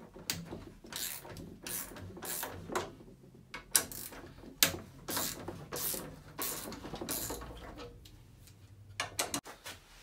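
A 10 mm socket on a ratchet slackening the nuts of a Vaillant ecoTEC Plus gas boiler's burner door: a run of short ratchet-clicking strokes, about two a second, stopping near the end.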